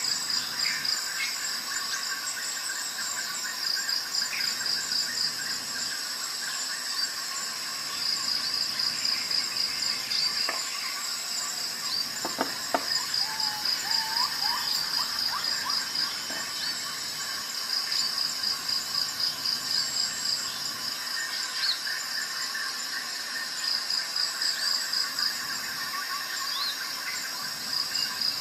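Insects trilling in a steady chorus, a high pulsing trill that swells and eases every few seconds. A few short rising chirps stand out about twelve seconds in.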